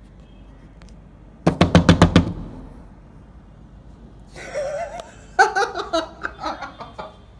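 A rapid burst of about seven loud knocks in under a second, struck to startle someone. A few seconds later come voices and laughter.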